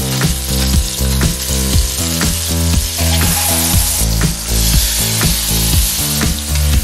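Cherry tomato halves sizzling as they fry in butter in a pan, stirred with a spoon. Background music with a steady beat plays under it.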